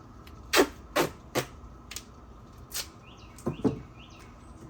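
Irregular sharp knocks and clacks, about seven in all, as a hose is handled and fitted at a water barrel. Faint short bird chirps come in about three seconds in.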